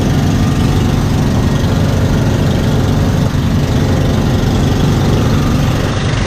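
Engine running steadily at a constant, low-pitched note.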